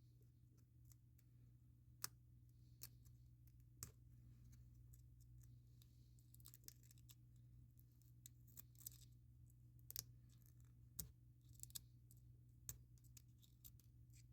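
Faint clicks and short scratchy scrapes of small hand tools working on a smartwatch case during a screen repair, over a steady low hum.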